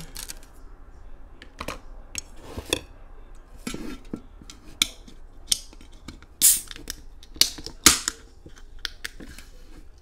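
Sharp clicks and taps from handling an aluminium soda can, with the tab pulled and the can cracked open about six and a half seconds in, a short fizzing hiss, and another sharp crack about a second later.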